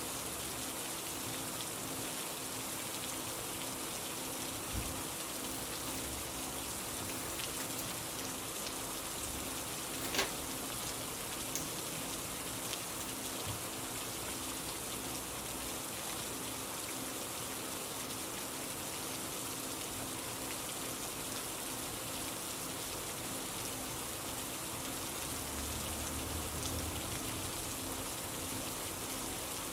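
Steady rain falling, an even hiss of drops with a faint low hum beneath and one sharper tap about ten seconds in.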